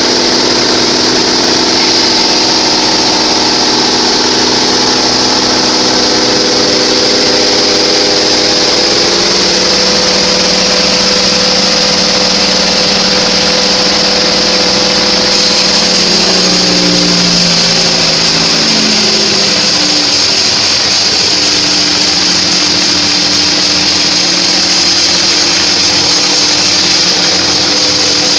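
Homemade bandsaw sawmill running, its drive and blade making a continuous loud mechanical sound with a steady high whine. About two-thirds of the way through, the pitch of the drive drops and shifts before settling again.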